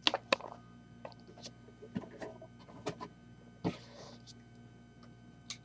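Scattered light clicks and taps of hands handling small plastic pieces and the camera, with a louder knock about three and a half seconds in followed by a brief rustle.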